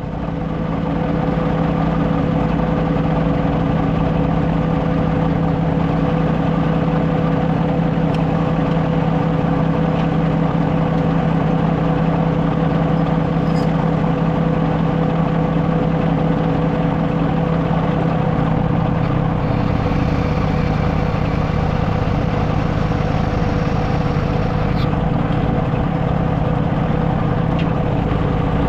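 Small Bobcat skid-steer loader's engine running steadily at constant speed, loud and close, with an even, unchanging pitch.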